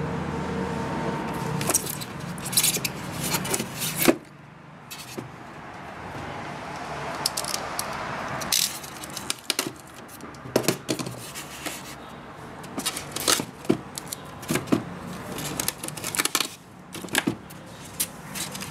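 Unboxing handling noise: irregular clicks, taps and scrapes of the plastic drone body and its styrofoam packaging being handled, with a longer rub about halfway through.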